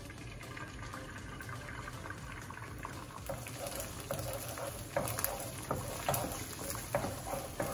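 Beaten eggs sizzling in hot oil in a wok, with a wooden spatula starting to stir and scrape through them about three seconds in.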